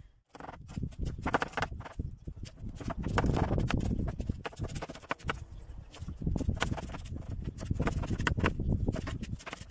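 Chef's knife chopping an onion on a wooden cutting board: a quick, irregular run of knocks as the blade strikes the board, several a second.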